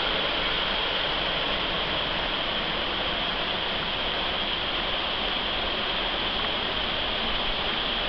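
Shallow creek rushing over rocks, a steady, even wash of water.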